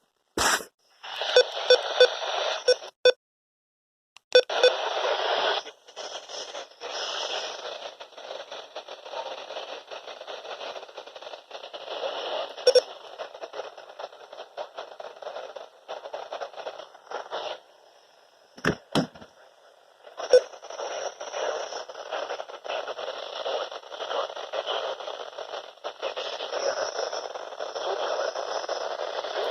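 Radio static from a weather radio receiver: a steady hiss with crackles and sharp clicks, cutting out to silence briefly twice.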